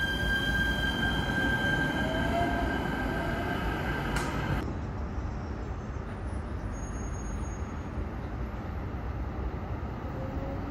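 A Metro P3010 light-rail train moving at the platform, its motors giving a steady high whine with a faint rising squeal. About four and a half seconds in, the sound changes abruptly to a low, steady rumble of open-air noise, with another light-rail train still far down the track.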